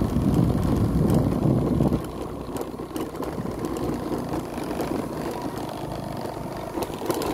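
Motorcycle engine running as the bike is ridden, louder for about the first two seconds and then easing to a lower, steadier level.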